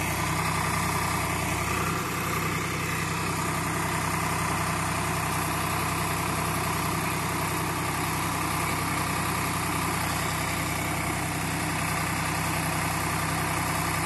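Tractor's diesel engine running steadily while it powers the hydraulics of a tractor-mounted JAYCEE Soil Master backhoe as the backhoe digs.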